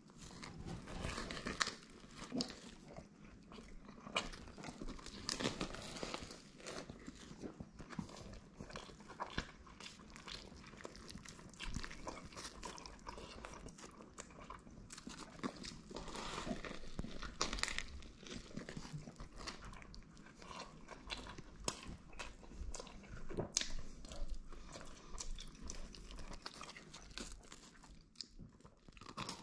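Close-up eating of a hot fried chicken sub sandwich: repeated bites into the crusty roll and crispy fried chicken, with crunching and chewing and the bread crackling as it is squeezed.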